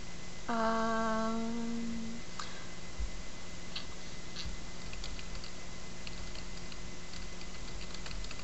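A woman's short closed-mouth hum, one steady note held for about a second and a half, starting about half a second in. Faint scattered ticks follow over a steady electrical hum from the recording setup.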